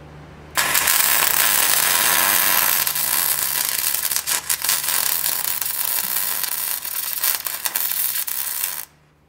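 MIG welding arc from a Miller Millermatic 255 laying a bead on a cracked steel mud flap bracket: a steady crackling hiss that starts about half a second in and cuts off near the end. The machine is on its auto-set for 3/16-inch material, which the welder finds a little too hot.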